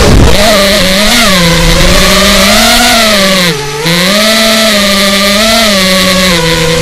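Brushless motors of an FPV racing quadcopter (DYS SE2205 2300KV on a 4S battery) buzzing, the pitch rising and falling with throttle. About three and a half seconds in, the throttle drops briefly, so the buzz dips in pitch and loudness, then climbs back.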